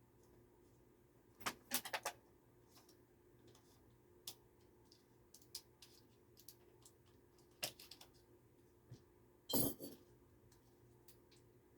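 Small objects being handled, making scattered clicks and light clatters: a quick run of several about a second and a half in, a few lone ticks, and a louder rattling burst near the end.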